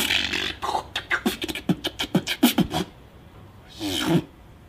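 A man beatboxing: a fast rhythmic run of mouth clicks, snare-like hits and short pitched vocal sounds that stops about three seconds in, then one brief vocal sound near the end.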